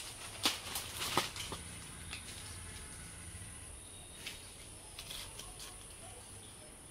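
Dry leaves and grass rustling and crackling as two gray langurs scuffle and wrestle. There are a few sharp crackles in the first second and a half and again around four to five seconds in, over a faint steady high-pitched hiss.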